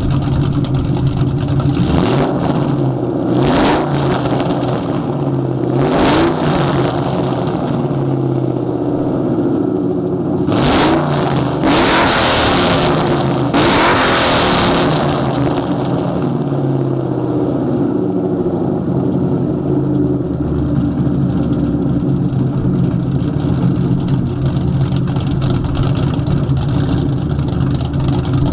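Ford 4.6L two-valve V8 with Comp cams, long-tube headers, an H-pipe and straight pipes, blipped up in several quick revs in the first half, then idling steadily.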